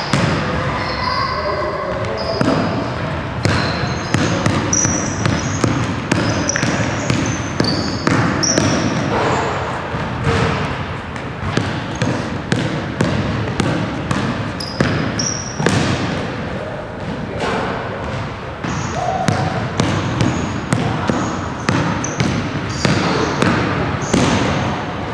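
Basketball dribbled hard on a hardwood gym floor, an irregular run of bounces, with short high-pitched sneaker squeaks as the player cuts and changes direction.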